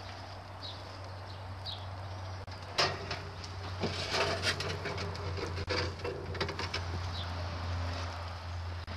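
A sharp knock about three seconds in, then a metal roasting tray scraping and clattering as it is pulled out of the oven of a mud wood-fired range. Faint bird chirps and a steady low hum run underneath.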